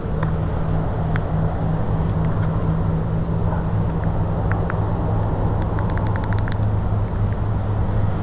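Steady low droning hum over outdoor background noise, the hum shifting lower about halfway through. Scattered faint clicks, and a quick run of ticks, about ten a second, a little past the middle.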